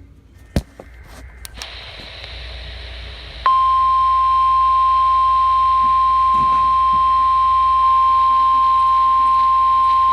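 A few sharp clicks and a rise of radio hiss, then, about three and a half seconds in, the NOAA Weather Radio warning alarm tone starts: one loud, steady, unbroken high tone that holds on. It is the alarm that comes ahead of a National Weather Service warning, here a severe thunderstorm warning.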